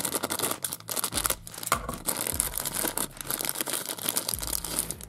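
Plastic toy packet crinkling as it is handled and torn open, a dense, irregular run of crackles.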